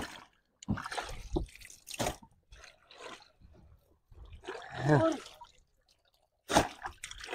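Water dripping and splashing with wet squelching sounds, in short separate bursts. A short voice is heard about five seconds in, and a sudden sharp sound about six and a half seconds in.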